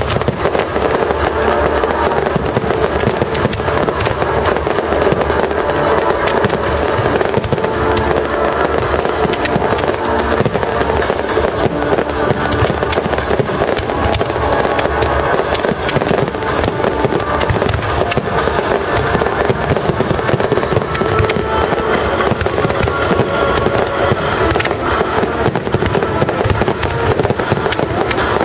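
A fireworks barrage: dense, unbroken crackling and popping from many comets and shells at once, steady in loudness throughout, with music playing underneath.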